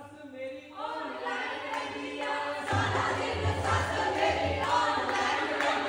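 A group of women's voices singing and cheering together in chorus, growing louder and fuller about three seconds in.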